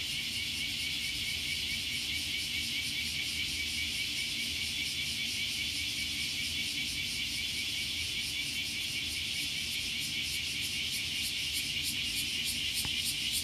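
Summer cicada chorus: a steady high buzzing that grows louder and pulses more strongly near the end, over a faint low hum.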